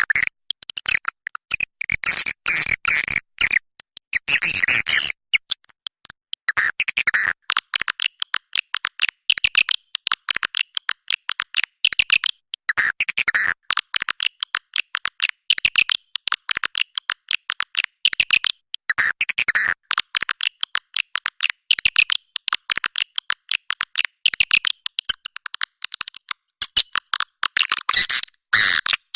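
Swiftlet calling recording, the kind played to attract swiftlets to a nest house: dense, rapid twittering chirps in quick runs, broken by short gaps.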